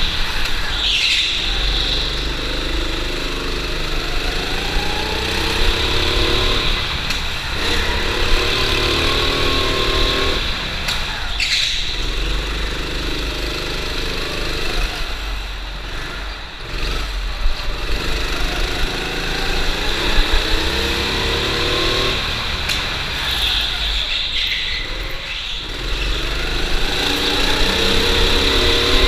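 Go-kart engine heard from on board, revving up again and again along the straights, its pitch climbing on each run, then dropping off into the corners.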